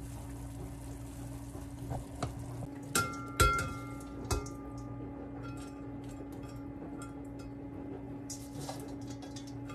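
A few sharp metallic clinks of cookware that ring briefly, the loudest about three and a half seconds in. Then soft light rustling and ticking as blanched bean sprouts are dropped by hand from a stainless colander into a pot, over a steady low hum.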